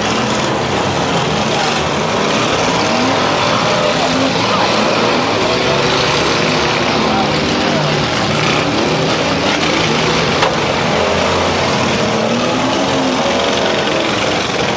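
Several demolition-derby cars' engines revving at once, rising and falling over one another, with one sharp crash about ten seconds in.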